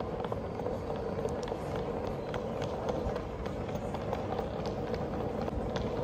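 Footsteps walking across a hard tiled floor, scattered light clicks over a steady rumble.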